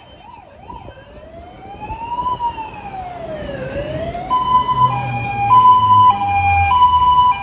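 Fire engine siren approaching. It gives a fast yelp, then one slow rising-and-falling wail, then about four seconds in switches to a two-tone hi-lo. It grows louder, with the truck's engine rumbling underneath.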